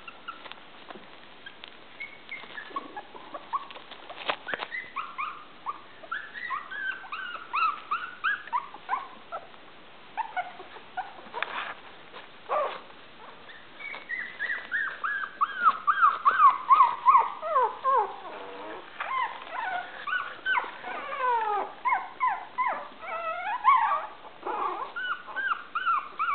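Maltese puppies about three weeks old whimpering and yipping as they play, in short, high, squeaky calls that come thick and fast in the second half.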